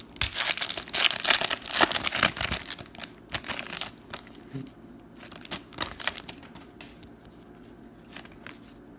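Foil wrapper of a pack of football trading cards being torn open and crinkled, loud crackling for the first few seconds, then fainter, scattered rustles as the cards come out and are handled.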